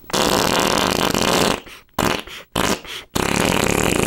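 A string of fart sounds: a long one lasting about a second and a half, two short ones between two and three seconds in, then another long one starting just after three seconds in.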